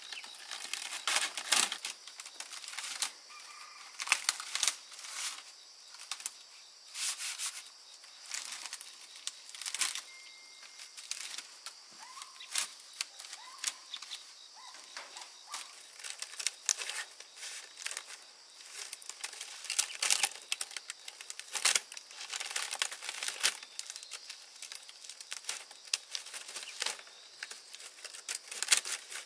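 Irregular run of sharp clicks, taps and knocks, several a second in bunches with short pauses, mixed with brief scraping and rustling.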